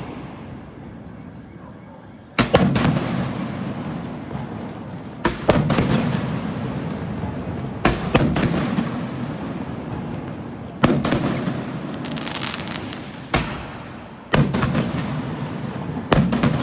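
Fireworks going off: a run of sharp bangs every two to three seconds, some in quick pairs, each followed by a long fading rumble and crackle.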